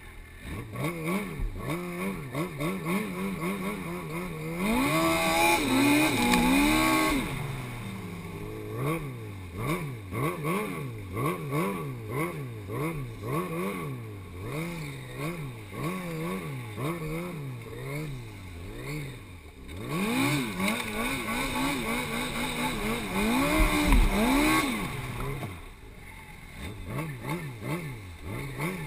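Yamaha Apex Mountain snowmobile's four-stroke, four-cylinder engine revving up and down with the throttle as it rides through snow. The revs rise and fall about once a second for a long stretch, with two louder, higher-revving pulls, one about five seconds in and one around twenty seconds in.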